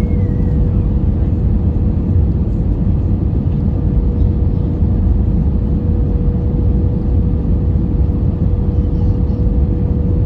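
Steady cabin noise inside an Airbus A320 during its approach to land: a loud, even, low rush of engine and airflow noise with a single steady tone held underneath.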